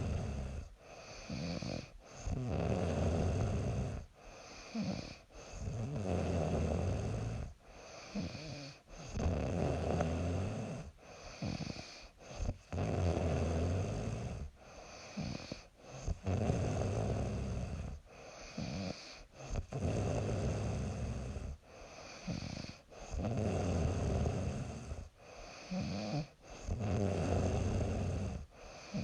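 A young woman snoring in her sleep: a long snore of about two seconds roughly every three and a half seconds, each with a shorter breath sound just before it.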